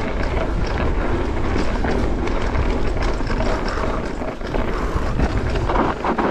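Mountain bike descending a rough trail: steady wind rumble on the microphone over tyres rolling on rock and the bike rattling.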